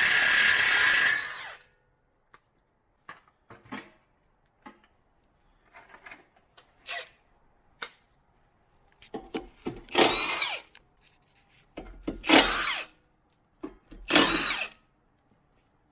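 A workshop power tool runs in three short bursts, its motor whine rising and falling each time, with scattered clicks and clatter of tools between. A loud steady noise runs at the start and stops about a second and a half in.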